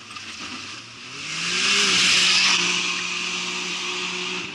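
Racing side-by-side (SSV) engine revving up, its note rising for about a second and then held steady, with a burst of rushing noise at its loudest around two seconds in.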